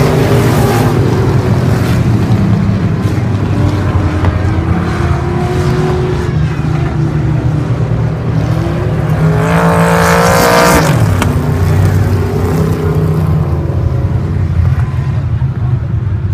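Engines of a field of hobby stock race cars running together as they circle the track. About ten seconds in, one car passes close, its engine note loud and then dropping in pitch.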